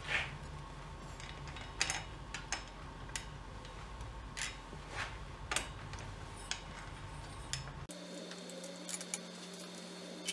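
Scattered light clicks and taps of metal and rubber coolant tube and hose fittings being handled and pushed into place by hand on a bare engine, over a steady low hum that changes about eight seconds in.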